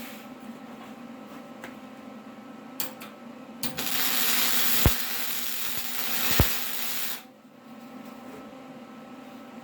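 Arc welder laying a tack weld on steel angle iron: a loud, steady hiss starts about three and a half seconds in and cuts off sharply about three and a half seconds later, with two sharp pops during it. A low steady hum runs underneath.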